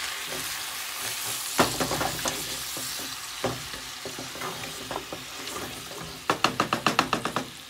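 Potato chunks and tomato slices sizzling in oil in a pot while a wooden spatula stirs and scrapes them. Near the end comes a quick run of about ten knocks, the spatula against the pot.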